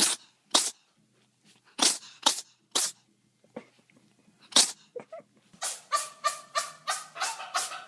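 A cat sneezing: several short, sharp, hissy sneezes a second or so apart, then a fast run of quick bursts, about three a second, near the end.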